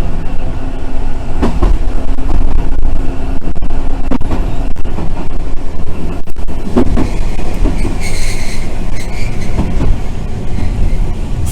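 Keifuku Randen tram running on the rails: a steady low rumble with scattered clacks from the wheels over the track. About eight seconds in, a brief high wheel squeal comes in.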